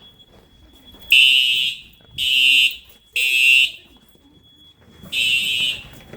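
Fire alarm horns sounding the three-pulse temporal evacuation pattern. Three harsh, high-pitched blasts come about a second apart, then a pause of about a second and a half, and the next set begins near the end.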